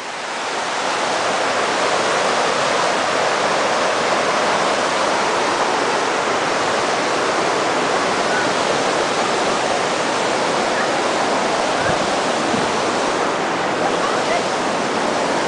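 Loud, steady rush of falling water, swelling in the first second and then holding even.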